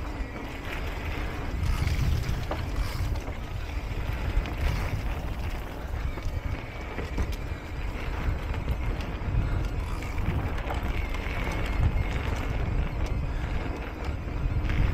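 Wind rumbling over the camera microphone while an electric mountain bike rolls fast over a dirt trail, its tyres crunching on the dirt and leaves and the bike rattling over bumps.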